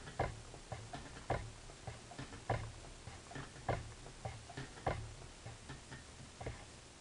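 Schacht spinning wheel being treadled with its flyer and bobbin turning: a regular knock a little more than once a second, with fainter ticks in between.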